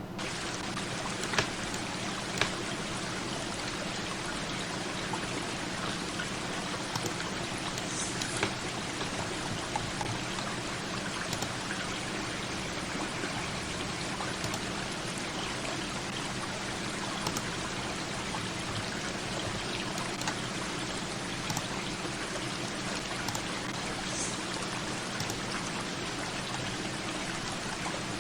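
Steady rushing water with scattered sharp ticks, the two loudest a second apart near the start.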